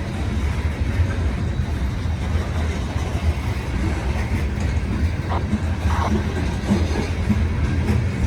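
Loaded grain train's cars rolling past with a steady low rumble, with a couple of short sharper noises about five and six seconds in.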